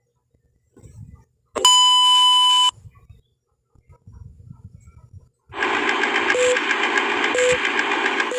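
A steady electronic bleep lasting about a second, like a censor bleep sound effect. It is followed a few seconds later by a loud, dense hissing noise with two short low blips in it, running on until the end.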